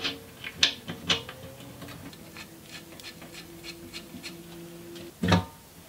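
Metal bolts and washers clicking and clinking as they are handled and fitted by hand into the flange of a sheet-metal oil pan on an engine block. The clicks come irregularly, with a louder knock near the end.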